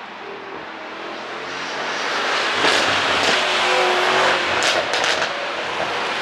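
Mercedes-AMG E63's twin-turbo V8 exhaust getting louder over a couple of seconds, then a run of sharp pops and crackles from an ECU pop-and-crackle tune.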